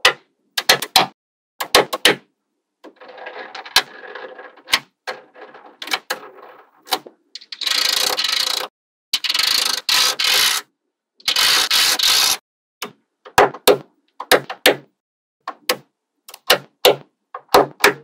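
Small magnetic balls clicking as they snap together while strips are pressed onto a block, in sharp single clicks and quick clusters. In the middle come three longer stretches of dense rattling clatter as whole runs of balls snap down.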